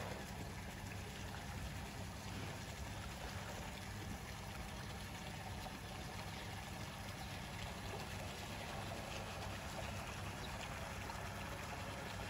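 Steady running and trickling water in a hippo's pool, with a low, steady hum underneath.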